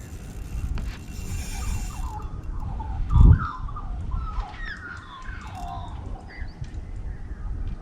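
Birds chirping in short, pitch-bending calls over a steady low rumble, with one loud thump about three seconds in.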